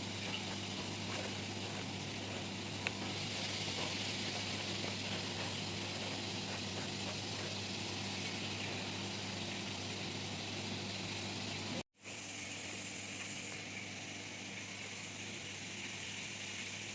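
Steady hiss over a low, even hum of kitchen noise, broken for an instant about twelve seconds in where the sound drops out.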